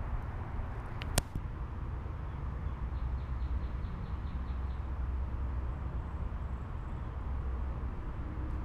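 Steady low outdoor rumble, with one sharp click about a second in and a faint quick run of high ticks around three to four seconds in.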